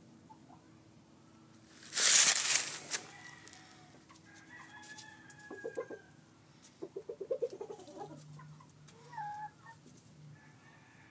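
Game rooster and hen: a loud, noisy rustling burst about two seconds in, then quick runs of short clucks in the middle and a brief call near the end.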